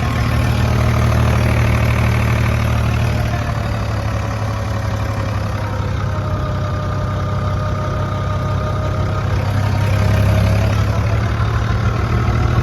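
Diesel engine of a 1969 Fiat 450 DT tractor running steadily, with a faint whine joining about halfway through.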